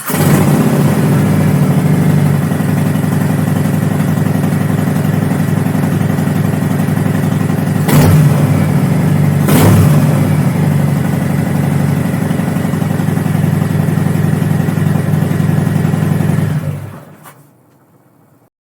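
Motorcycle engine running steadily, with two brief louder moments about eight and nine and a half seconds in, then fading out near the end.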